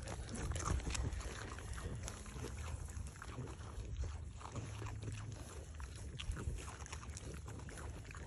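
Kunekune piglets rooting through dry hay and chewing Cheerios: many small irregular crunches and rustles over a low rumble of wind on the microphone.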